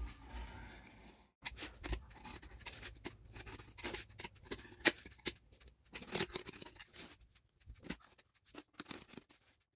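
Utility knife blade drawn along a ruler, lightly scoring cardboard: a faint run of short, irregular scratching strokes.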